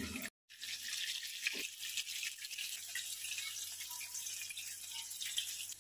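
Marinated boneless chicken pieces shallow frying in cooking oil in a pan: a steady sizzle with faint crackles, which cuts out briefly just after the start.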